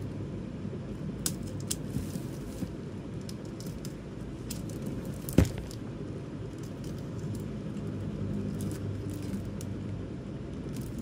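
Box cutter slicing and scraping the clear plastic wrap around a stack of CD cases: scattered small clicks and crinkles, with one sharp click about five seconds in, over a steady low rumble.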